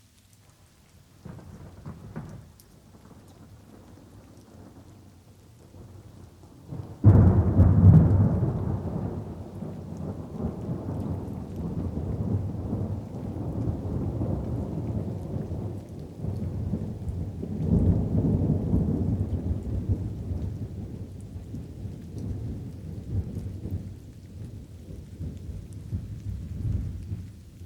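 Light rain with thunder. A faint rumble comes about a second in, then a sudden loud thunderclap about seven seconds in rolls on as long low rumbling, swells again around eighteen seconds, and fades near the end.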